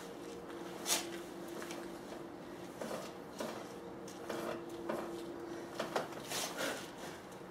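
Scattered short rustles and scuffs of a person in a padded jacket moving on a wooden deck during a floor exercise, over a faint steady hum.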